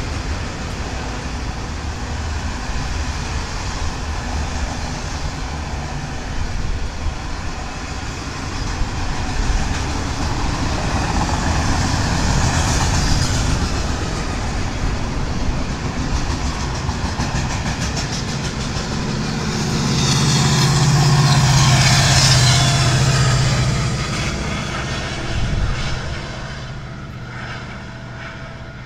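Union Pacific autorack freight train rolling past: a steady rumble and rattle of steel wheels on rail. About twenty seconds in, the louder steady drone of a diesel locomotive at the rear of the train swells and passes, then the sound fades as the train moves away.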